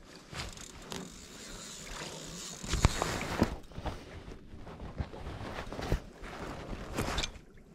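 Fishing reel running as a hooked pike is played on a bent rod, with several sharp knocks from gear being handled in the boat.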